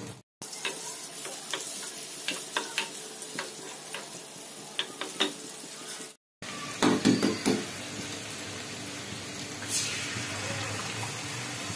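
Butter and oil sizzling in a wok, with clicks and scrapes from a wooden spatula. The sound cuts out briefly twice. After the second break, chopped onions sizzle in the hot fat, and near the end an egg is cracked in with a short burst of sizzle.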